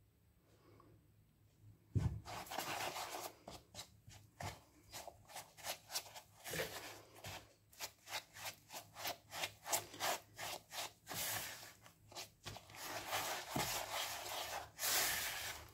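Silicone spatula stirring and scraping a stiff mix of eggs, flour, sugar and butter against a plastic mixing bowl, in short repeated strokes about two or three a second. It starts with a knock about two seconds in.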